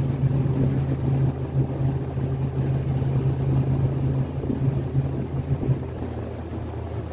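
Small boat motor running under way, a steady low hum that weakens and thins about six seconds in.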